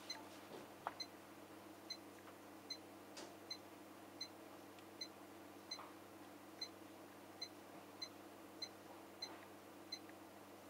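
Siemens iQ700 heat pump dryer's control panel giving about fourteen short, high electronic beeps, one roughly every 0.7 s, as the drying-time setting is stepped up.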